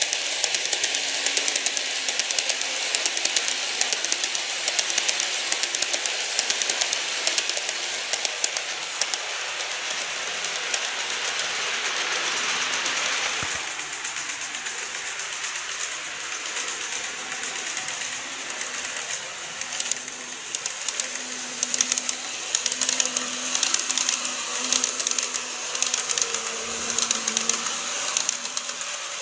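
Model railway tank wagons rolling over the track: rapid, continuous clicking of the small wheels over rail joints with a steady running hiss. About 13 seconds in the hiss drops and the clicking carries on a little quieter, with a faint hum coming and going.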